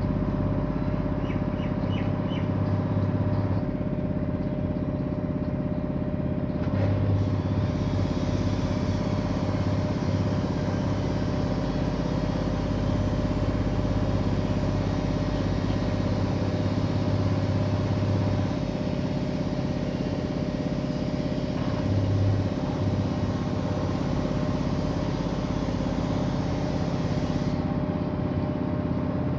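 Washing machine in its spin cycle, standing on anti-vibration pads: a steady motor and drum hum with little shaking, the pads damping the vibration.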